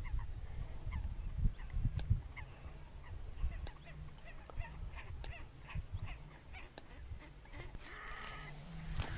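Wild birds calling across open water: many short high chirps throughout, and a louder, lower call with several tones about eight seconds in. A low rumble runs underneath.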